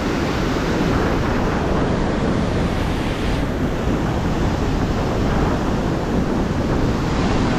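Merced River rapids rushing loudly and steadily, with wind buffeting the microphone.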